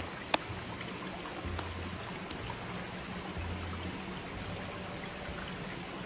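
Steady rush of a mountain stream over rocks, with one sharp click shortly after the start.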